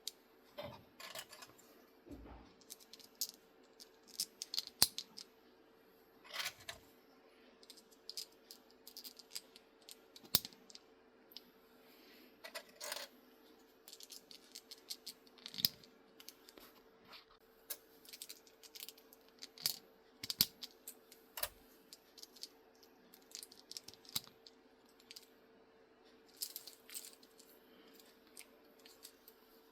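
3D-printed plastic cable-chain links being snapped together and handled: many small sharp clicks and light rattles at irregular intervals, over a faint steady hum.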